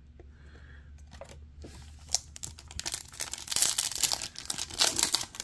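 A foil-lined trading-card pack wrapper being torn open and crinkled by hand. Scattered crackles start about two seconds in and become steady crinkling and tearing.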